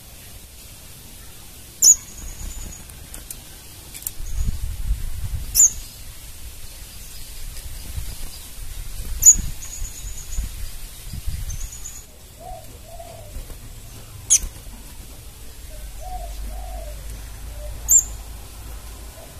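Crimson sunbird giving sharp, very high chip calls about five times, a few seconds apart, some followed by a brief high trill.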